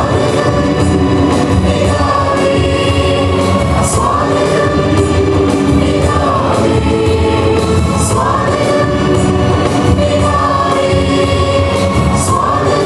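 A mixed choir of women and men singing together through microphones, holding long notes.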